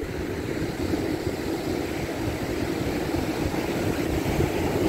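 Steady wind noise on the microphone with the wash of breaking surf behind it, growing slightly louder.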